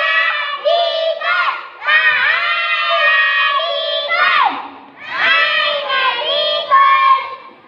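A group of young children chanting a choral recitation (kalam jamaie) loudly in unison, in phrases with short breaks, the voices sliding down together about four and a half seconds in.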